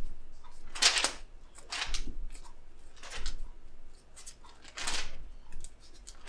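Thin pages of a large Bible being leafed through by hand: several short papery rustles, the loudest about a second in and near five seconds.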